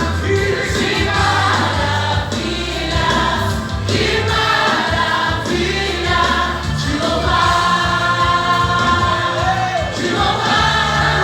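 Gospel music with a choir singing over band accompaniment and a steady bass line.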